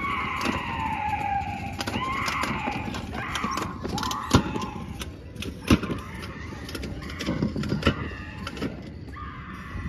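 Halloween yard props playing spooky sound effects: eerie tones that slowly fall and waver, broken by two sharp clicks about four and a half and six seconds in.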